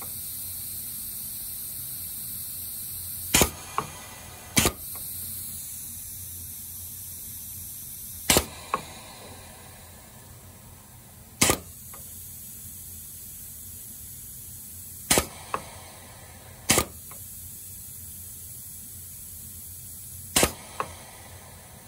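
Pneumatic actuator of a rotary-valve piston filling machine cycling on a short, slow stroke: sharp clacks a few seconds apart as it switches between forward and return strokes, some followed by a lighter click. A steady hiss of compressed air runs under them, fading after about six seconds.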